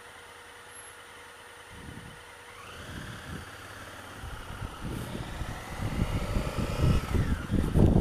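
Honda Africa Twin CRF1000L's parallel-twin engine idling at a standstill, then pulling away: its note rises about two and a half seconds in, holds, and falls back near the end. Wind buffets the microphone more and more as speed builds.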